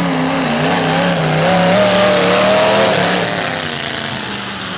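Demolition derby car engines revving hard, the pitch wavering and climbing to a peak around the middle, then easing off.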